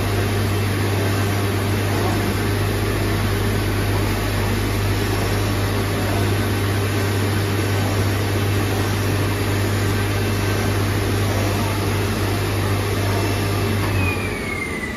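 Oscillating-knife CNC cutting machine running as it cuts fabric: a steady loud hum and whir of motors and air. About a second before the end, the low hum cuts off and a whine falls in pitch, as a motor spinning down.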